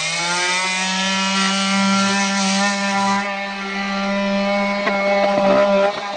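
Rockwell Sonicrafter F30 oscillating multi-tool running at speed, a steady buzzing hum, as its blade is worked under a stuck, water-damaged floorboard; a few scraping clicks near the end.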